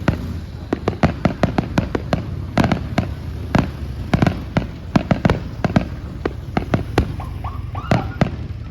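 Fireworks going off in a rapid, irregular string of sharp bangs, many close together, several to a second.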